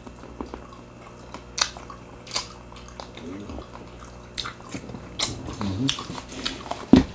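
Close-up eating sounds: scattered sharp crunches and chewing of crispy fried food, eaten by hand, with a few short hummed "mm"s.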